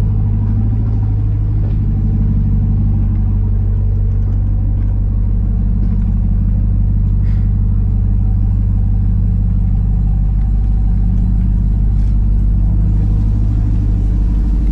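Ram TRX's V8 engine running steadily at a slow off-road crawl: a deep, even hum with no revving, and a few faint clicks scattered through it.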